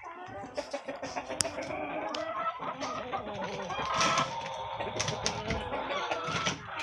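A flock of chickens clucking while pecking at a heap of bagels, their beaks striking with many quick, irregular clicks.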